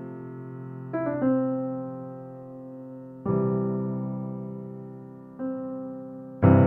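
Slow background piano music: chords struck about every two seconds, each left to ring and fade away.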